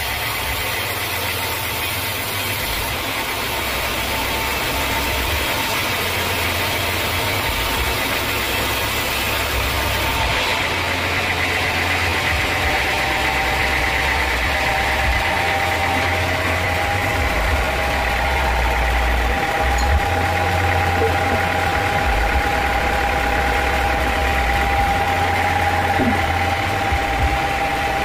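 Band sawmill cutting lengthwise through a teak log: a steady whine from the blade over the low, uneven drone of the mill's drive.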